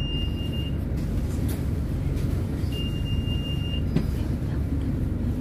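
Steady low engine and road rumble in the lower-deck cabin of a Wright Gemini 3 double-decker bus. Two long, high electronic beeps sound about three seconds apart, each lasting about a second, and there is a single sharp click about four seconds in.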